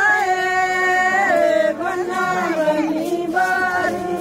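Singing of a Punjabi song: one voice holding long notes, sliding between pitches, with a slight waver.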